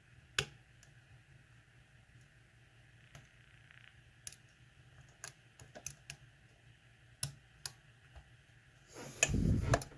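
Lock picking: a pick and tension wrench working the pins of a lock, giving scattered sharp metallic clicks, with a short louder rush of noise near the end. The lock is sitting in a false set that the picker cannot get out of.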